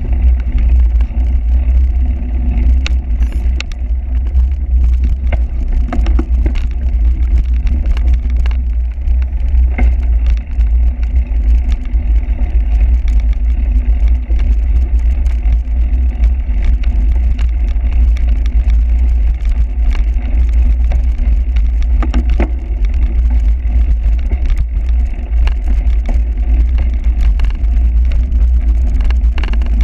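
Cyclocross bike ridden over rough ground: a loud, steady low wind rumble on the microphone, with frequent clicks and rattles throughout.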